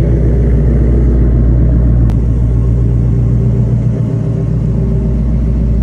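A vehicle engine running with a steady, deep rumble that holds an even pitch and does not rev.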